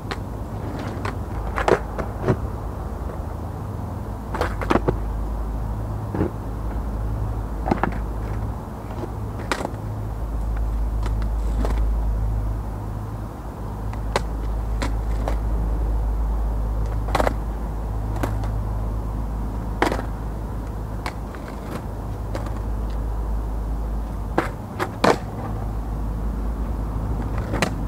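Skateboard wheels rolling on asphalt with a steady low rumble, broken by about a dozen sharp, irregular clacks of the board's tail and wheels striking the ground as freestyle tricks are landed.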